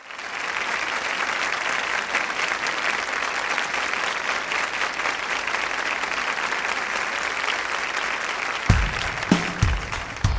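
Live concert audience applauding, with a kick drum starting a steady beat about nine seconds in.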